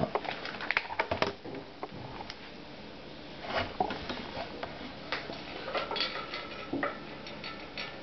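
Scattered hard-plastic clicks and knocks as a Megaminx puzzle and a corner piece that has popped off it are handled. The clicks come in a quick cluster at the start, then in short groups a few seconds apart.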